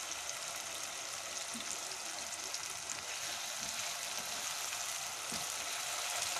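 Onion-tomato masala with spices sizzling steadily in hot oil in a non-stick wok, with a spatula stirring through it.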